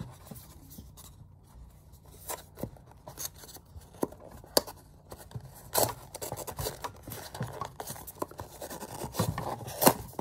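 Hands working open a small cardboard product box: paperboard scraping and rubbing, with scattered sharp clicks and taps. The loudest come about midway and just before the end.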